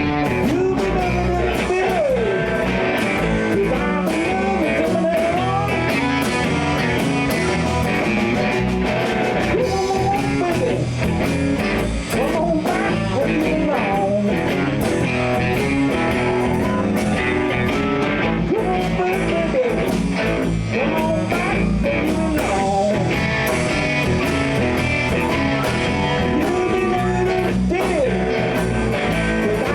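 Live blues-rock band playing: electric guitars, bass and drums at full volume, with bent lead notes gliding in pitch.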